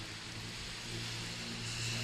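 Steady hiss of rain and wind in a thunderstorm, with a faint steady low hum underneath.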